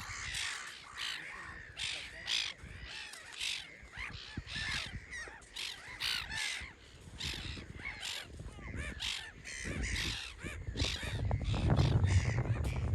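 A flock of birds calling over one another: many quick, overlapping calls, two or three a second. A low rumble grows louder in the last two seconds.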